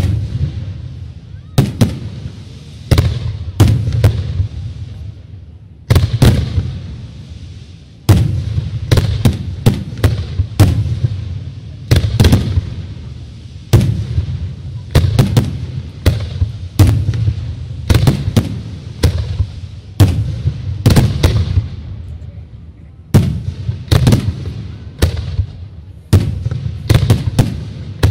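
Aerial firework shells bursting in quick, irregular succession: dozens of loud, sharp bangs, often several a second, each trailed by a rolling echo over a constant low rumble. There are brief lulls about a quarter of the way in and again near three-quarters.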